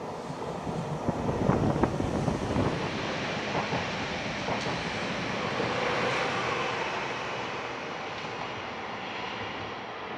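ÖBB S-Bahn electric multiple unit running round the curve: wheel-on-rail rumble with a few sharp clicks, loudest a second or two in, then easing into a steady rush that slowly fades as the train moves off.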